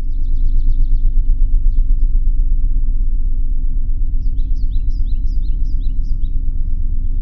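A loud, low rumble that throbs several times a second and holds steady, with small birds chirping high above it just after the start and again in a quick run of chirps in the second half.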